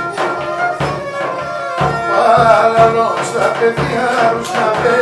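Live Pontic Greek folk music: a daouli drum beats a steady rhythm under a held melody line, and a man starts singing about two seconds in.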